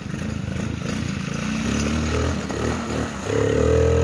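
Small youth quad bike's engine revving: the pitch climbs from about halfway through, then the engine holds loud and steady at high revs from about three seconds in.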